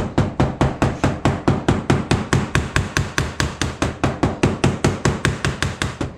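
Mallet tapping rapidly and evenly, about five strikes a second, driving an engine seal in until it sits flush.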